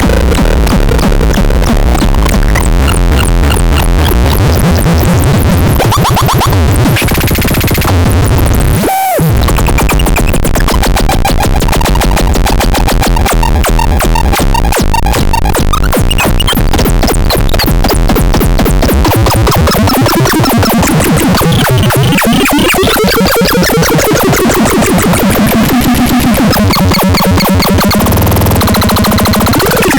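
UFOFON electronic sound instrument playing loud, harsh, noisy synth textures with fast pulsing and sweeping glides up and down in pitch. It nearly cuts out for a moment about nine seconds in.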